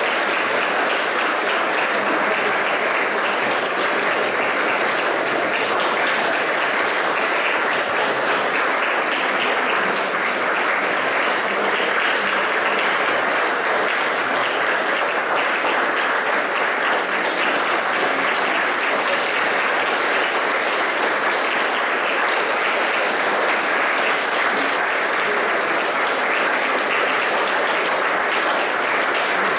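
Audience applauding, a dense clapping that holds at an even level throughout.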